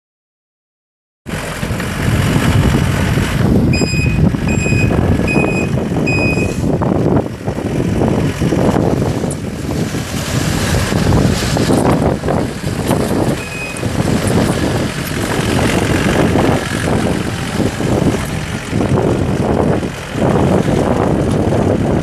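The diesel engine of a Gehl CTL75 compact track loader, a Yanmar four-cylinder turbo diesel, starts to be heard about a second in and keeps running as the machine drives on its tracks, with irregular clanks. Its backup alarm beeps four times, evenly spaced, a few seconds in, and once more about midway, which signals that the machine is reversing.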